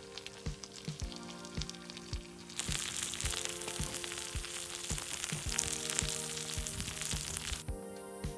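Beef offal frying in olive oil in a hot pan, sizzling loudly once an egg goes in; the sizzle starts suddenly about two and a half seconds in and stops abruptly near the end. Background music with a steady beat plays throughout.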